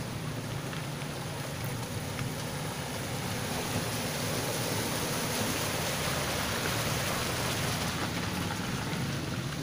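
A Honda CR-V driving slowly through a flooded road, its engine running low under a steady wash of water sloshing around its tyres. The splashing grows a little louder as the car comes close and passes.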